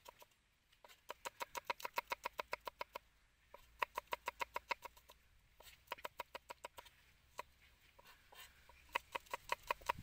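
Cleaver chopping garlic cloves on a round wooden chopping block: quick runs of sharp knocks, several a second, broken by short pauses.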